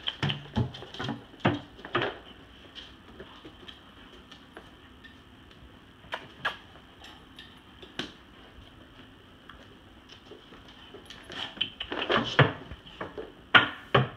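Dogs moving about and mouthing toys on a floor: scattered taps and knocks, bunched in the first couple of seconds and again near the end, with a quieter stretch between.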